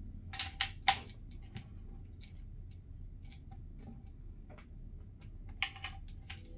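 Pennies clicking and clinking as they are handled and pushed into weight holes in a 3D-printed PLA base: a scatter of sharp metallic clicks, the loudest about a second in.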